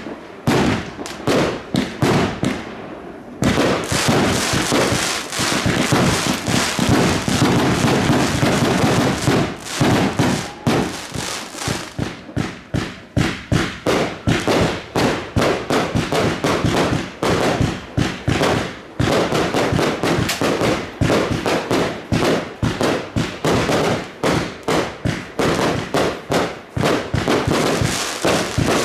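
Fireworks display: a dense, rapid run of bangs and crackling, with a short lull about three seconds in.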